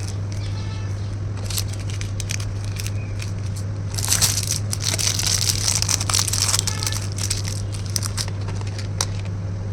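Plastic packaging crinkling and rustling as kit items are handled, with scattered small clicks and a louder stretch of crinkling from about four to seven seconds in, over a steady low hum.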